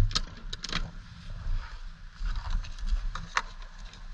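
Refuelling handling noise at a gas pump: a few sharp clicks and knocks, the loudest at the very start, over a low steady rumble.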